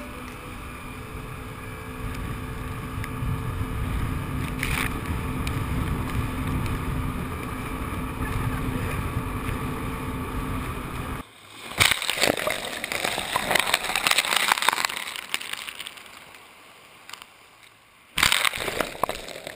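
Jet ski engine running at speed, a steady drone with water and wind rushing past. About eleven seconds in it gives way to a wave breaking and washing up a pebble beach, the wash fading before another surge near the end.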